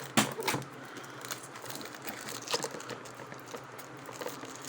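Product packaging being worked at by hand while it resists opening: crinkling with a few sharp clicks and taps.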